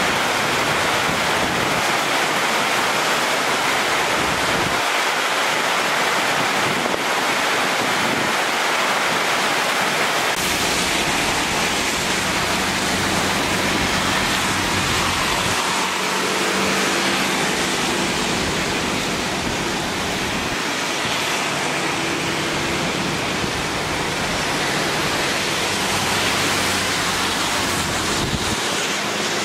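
Heavy rain pouring down in a steady hiss. From about twelve seconds in, a faint low steady hum lies under it.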